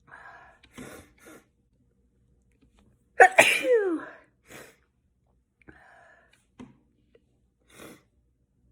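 A person's sneeze about three seconds in, loud and voiced, falling in pitch. It comes after a few short breathy intakes and is followed by short breaths and sniffs.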